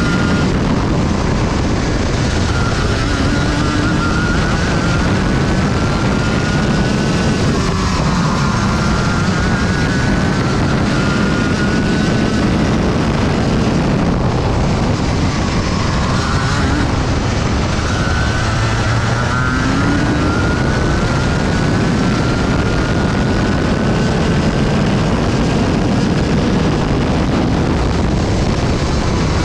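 Rotax Max Junior 125cc single-cylinder two-stroke kart engine at racing speed, its pitch climbing steadily along each straight and dropping sharply as the kart slows for a corner, several times over.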